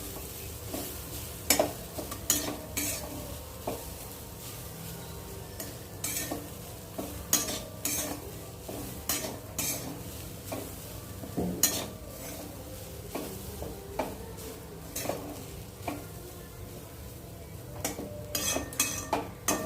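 Grated fresh coconut being sautéed in a kadhai: a utensil stirring and scraping it around the pan, with sharp knocks against the pan at irregular intervals over a faint sizzle.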